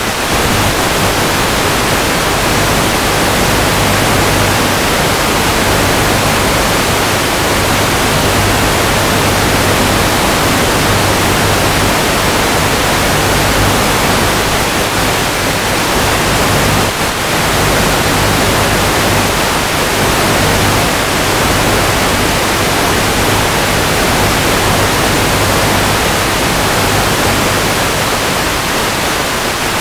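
Loud, steady hiss of radio static on the analog FPV video link's audio, the signal weak at long range, with a low hum underneath that comes and goes.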